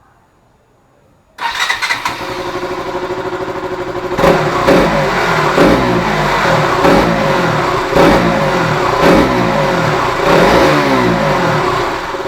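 KTM Duke's single-cylinder engine, fitted with a K&N high-flow air filter, starts about a second and a half in and idles, then is revved in short blips about once a second, around seven times, before settling back toward idle near the end.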